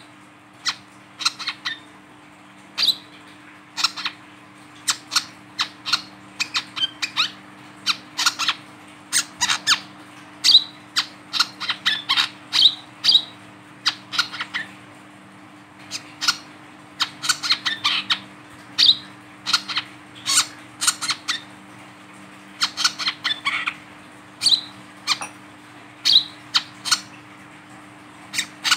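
Male brown-throated sunbird calling while held on a finger: sharp, high chips and squeaky chatter in quick irregular clusters, over a faint low steady hum.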